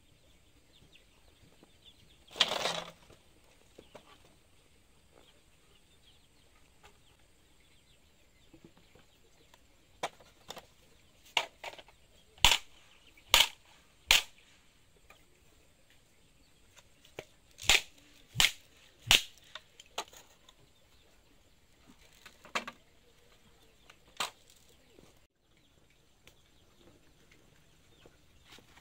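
A series of sharp knocks or strikes, about ten in all, in irregular groups, including a run of three about two-thirds of a second apart. About two seconds in there is a half-second rough, rushing noise.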